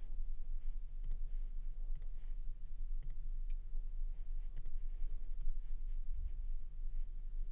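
Computer clicks while working through on-screen menus: about five sharp clicks, roughly one a second, most heard as a quick double tick of press and release. Under them runs a low steady hum.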